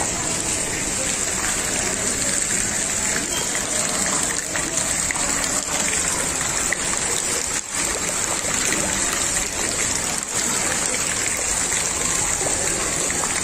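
Floodwater rushing down a street: a steady gushing of water, dipping briefly a couple of times.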